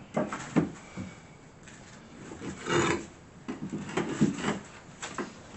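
Century-old French cement tiles being handled and set down on a floor: short knocks and scrapes as tile meets tile and floor, with a longer scrape about three seconds in and a quick run of knocks after it.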